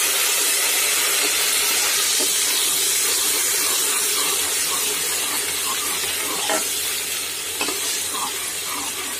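Freshly added onion paste sizzling hard in hot mustard oil in an aluminium pressure cooker, stirred with a metal ladle. The hiss eases a little toward the end, and the ladle knocks against the pot a couple of times in the second half.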